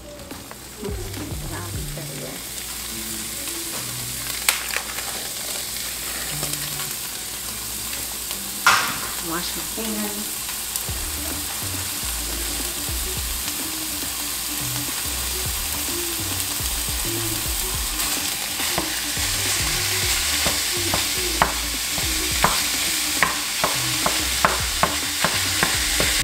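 Raw ground beef sizzling in a hot nonstick frying pan, the sizzle slowly growing louder as the meat heats. Near the end it is being stirred and broken up, with quick taps and scrapes of a utensil against the pan.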